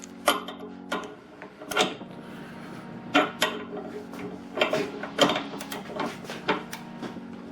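Irregular clicks and knocks of metal tools and a workbench being handled and strained against, over a steady low hum.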